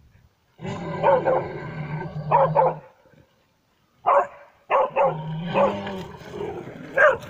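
A dog barking repeatedly at a mechanical bear dummy, in clusters of sharp barks with a short pause in the middle. A steady low hum runs beneath some of the barks.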